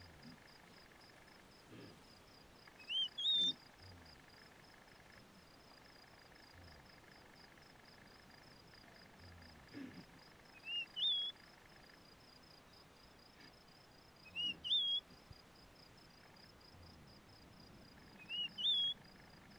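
A songbird sings a short rising two-part whistled phrase four times, a few seconds apart, over a steady high fast-pulsed insect trill.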